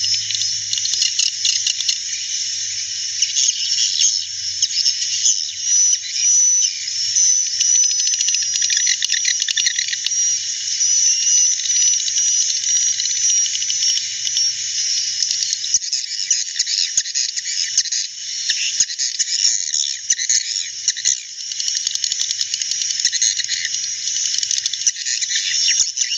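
A flock of swiftlets twittering continuously: a dense, high-pitched chatter of many overlapping chirps, the birds' own natural calls rather than a played lure sound.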